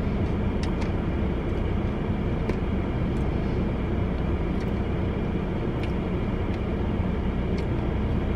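Steady low hum of a parked car running, heard inside the cabin, with a few faint clicks scattered through it.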